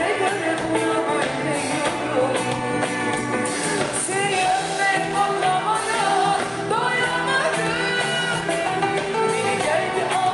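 A woman singing a Turkish pop song live into a microphone, with a full band accompanying her.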